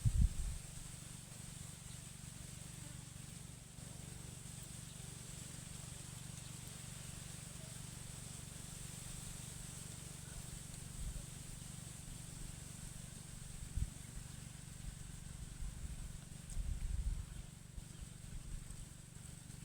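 Quiet outdoor ambience: a steady low rumble with a thin, steady high-pitched whine above it, broken by a few brief low thumps, about 14 s in and again around 16 to 17 s in.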